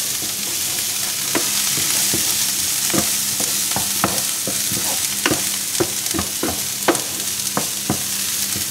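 Diced chorizo, onion and garlic sizzling in a non-stick frying pan, stirred with a wooden spatula that knocks and scrapes against the pan in irregular taps.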